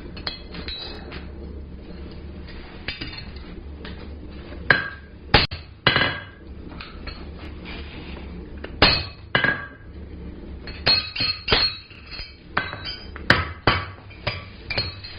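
Hand hammer striking a punch on hot steel bar at the anvil, a series of irregular, sharp metallic clinks that begin a few seconds in, driving out a punched slug that had not come all the way out of the hole. A steady low hum runs underneath.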